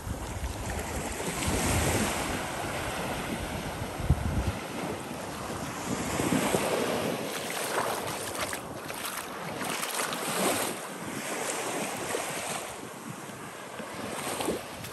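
Small surf washing up a sandy beach and sliding back, a steady hiss that swells and eases every second or two. Wind rumbles on the microphone for the first four seconds or so, then drops away.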